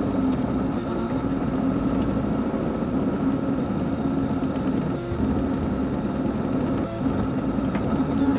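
A small machine's motor running steadily with a hum and a few steady tones, changing briefly about five and seven seconds in.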